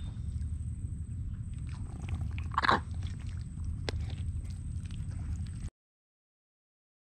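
Wind rumbling on the microphone, with a thin steady high whine and scattered small clicks, and one brief louder sound about two and a half seconds in. The sound cuts out to total silence about a second and a half before the end.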